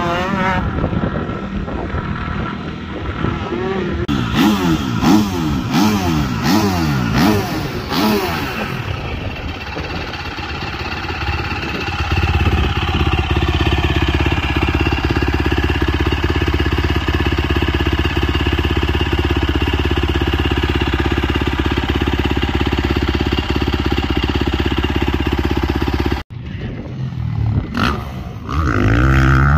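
Motocross dirt-bike engines revving up and down, rising and falling in pitch. Through the middle, a steady low engine drone holds one pitch. After a sudden cut, revving again near the end.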